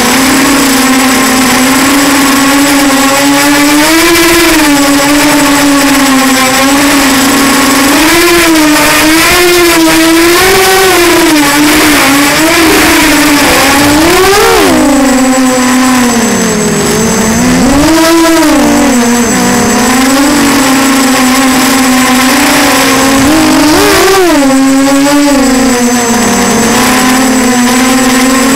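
Walkera Runner 250 quadcopter's brushless motors and propellers whining over a steady rush of air, recorded on board. The pitch rises and falls constantly with the throttle, and about halfway through it drops low for a few seconds before climbing back.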